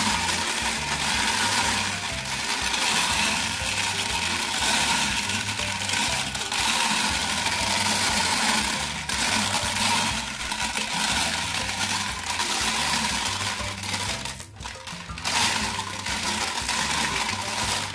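Glass marbles clattering and rattling inside the hand-turned plastic drum of a Bruder toy cement mixer truck, tumbling out down its plastic chute, with a brief lull about two-thirds of the way through.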